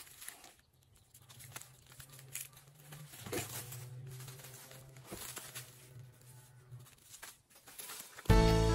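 Hand shears snipping the dry roots off harvested onions, with light clicks and the rustle of dry onion stalks and plastic mulch being handled. A faint steady low hum runs underneath, and music starts just before the end.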